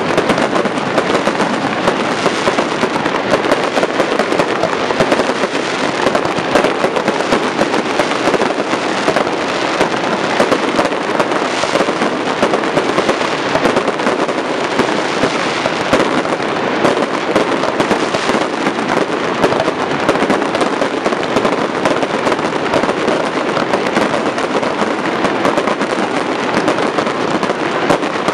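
Aerial fireworks going off in a dense, unbroken barrage of bangs and crackling, many bursts to the second, loud throughout.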